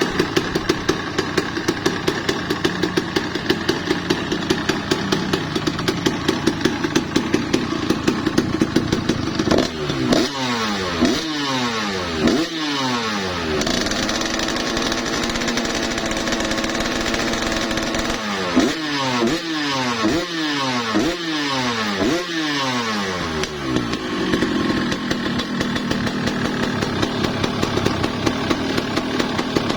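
Ninja motorcycle engine idling, then revved in a run of quick throttle blips about ten seconds in, held at a steady higher speed for several seconds, blipped again several times and let fall back to idle.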